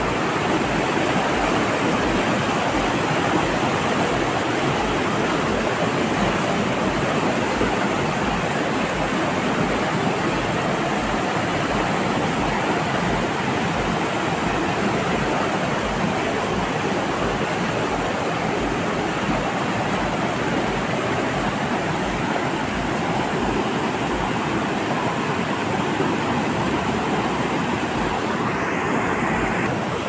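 Steady rushing of a muddy mountain river running fast in rapids over boulders.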